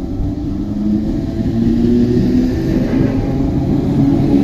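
DART 8100 class electric multiple unit pulling into the platform and passing close by: a rumble of wheels on rail with a humming motor tone that shifts slightly in pitch, growing louder as it draws level.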